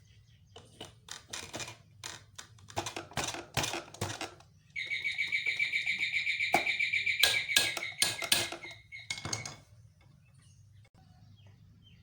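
Clicks and knocks from the sewing machine's wheel and belt being handled and fitted back into place. About five seconds in, a bird starts a rapid, high chirping that is the loudest sound and lasts about five seconds, with a few more knocks over it.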